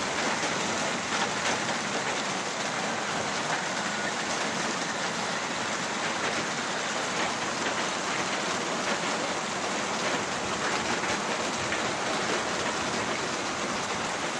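Steady rain falling after a thunderstorm with hail, with scattered sharper ticks of nearby drops.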